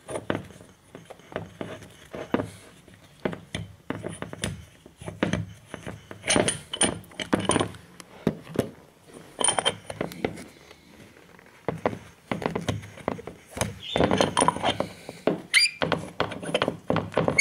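A removed VW Golf rear brake caliper being handled and tipped over on a wooden floor: irregular knocks, clinks and scrapes of metal on wood and metal on metal, with a short squeak near the end.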